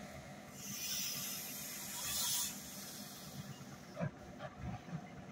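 Compressed-air hiss from an ED4M electric train's brakes as it runs slowly into the platform. The hiss rises half a second in, lasts about two seconds and fades, and a few soft low knocks follow near the end.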